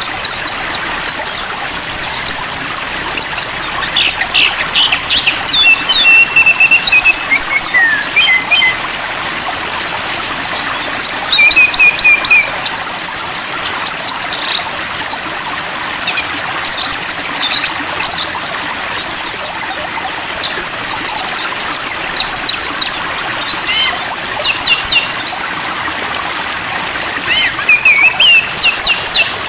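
Songbirds giving repeated bursts of high whistles and fast chirps over the steady sound of running water, as in a birdsong-and-stream calming track for caged songbirds.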